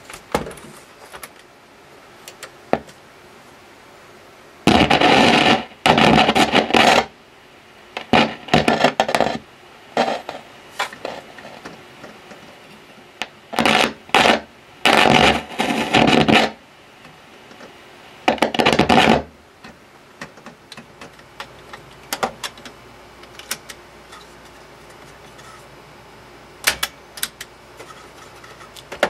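Sanyo M9994 boombox's speakers giving out loud bursts of scratchy crackle and static, each a second or two long, as its knobs are turned, with a few clicks between. It is the unrestored radio, whose volume potentiometer is dirty.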